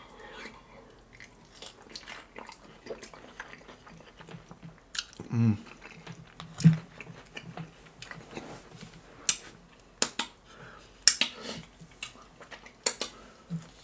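Close-miked chewing and biting of a fried chicken tender, with wet mouth clicks and small crackles throughout. There is a short hum-like sound from the eater about five seconds in.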